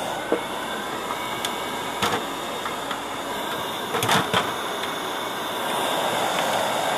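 Handheld electric air-cleaning tool running with a steady rush of air, its ribbed nozzle worked over a sewing machine's plastic casing to clear out dust, getting louder near the end. A few sharp knocks of the nozzle against the plastic.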